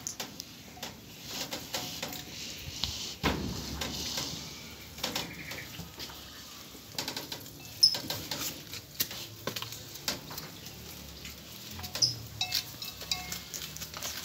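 Cattle eating straw at a concrete feed trough: rustling and munching with scattered knocks and clicks, a heavy thump about three seconds in, and livestock calls in the background.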